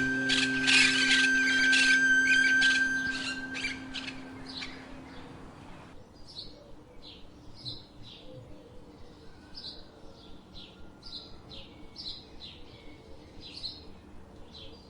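Music fading out over the first few seconds, then a small bird chirping: short high chirps repeated over and over, quieter than the music.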